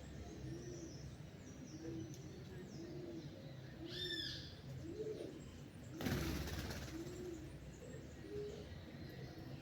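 A dove cooing in a steady series of low, soft notes, about three every two seconds. A clear whistled note from another bird comes about four seconds in, and a short rush of wing flaps about six seconds in, over faint high chirps.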